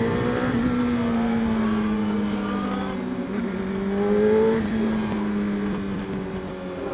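Honda CBR600RR's inline-four with an Akrapovic exhaust running under way, heard from the rider's seat. The note climbs gently and drops back about four and a half seconds in.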